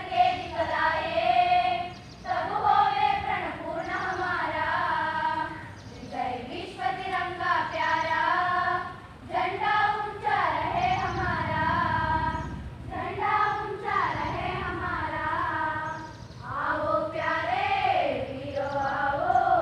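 A choir of schoolchildren singing together in phrases, with short breaks between lines.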